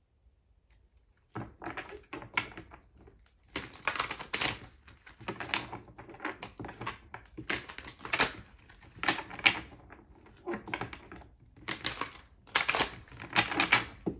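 A deck of oracle cards being shuffled by hand: rapid flicking and riffling of card edges in repeated bursts, starting about a second and a half in.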